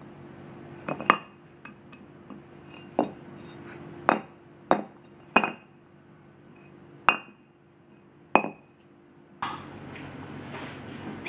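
A hard stone block knocked against a concrete floor: about eight sharp, clinking knocks at uneven intervals. Near the end the knocking stops and a steady room hiss takes over.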